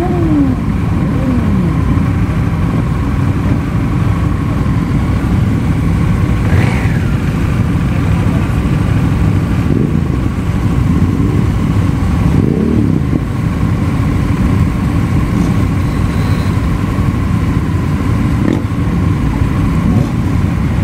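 Many motorcycle engines idling together in a stationary pack, with engines revved briefly now and then: a falling rev about a second in, and rising-and-falling revs around seven seconds and twelve to thirteen seconds in.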